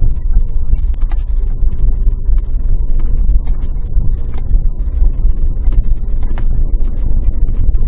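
Cabin noise of a Suzuki Jimny Sierra driving on a gravel forest road: a steady low engine and tyre rumble with dense, irregular clicking and rattling from gravel and the bouncing body.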